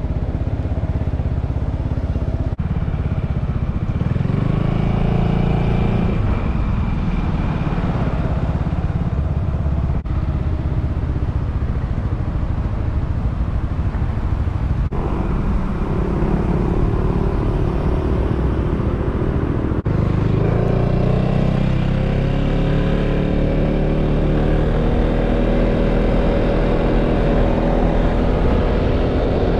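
Yamaha XMAX 300 scooter's single-cylinder engine running while riding, rising in pitch as it pulls away about four seconds in and again climbing steadily through the last third, over a constant low rumble.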